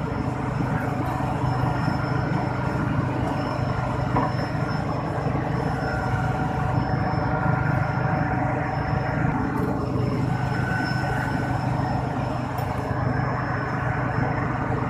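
Steady low mechanical drone of machinery running, unbroken throughout, with a faint thin high whine above it.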